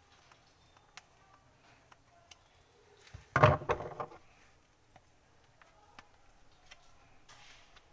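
Handling noises from a mop being worked on by hand: scattered light clicks, with a short, loud clatter of knocks about three and a half seconds in.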